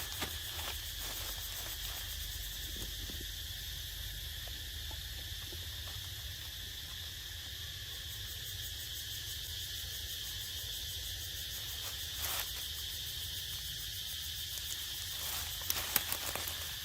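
Steady insect chorus, an even high-pitched drone, with a few short clicks or rustles about twelve seconds in and near the end.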